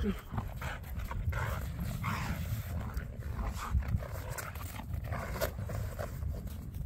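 A German Shepherd-type dog panting and making vocal noises as it jumps and tugs at a bite toy, with scattered short clicks over a steady low rumble.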